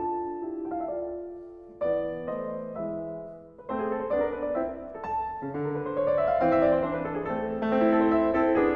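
Background piano music, notes and chords changing every second or so.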